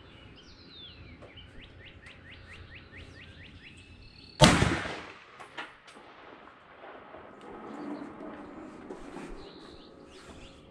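A single shot from an M1 Garand rifle (.30-06) about four and a half seconds in, the loudest thing by far, with a short echo dying away after it. Before the shot a bird chirps in a quick run of short rising notes.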